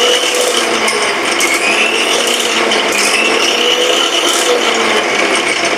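Electric mixer grinder running steadily, blending a milkshake of milk, ice cubes and ice cream, its motor whine wavering slightly in pitch over a rattling churn in the jar.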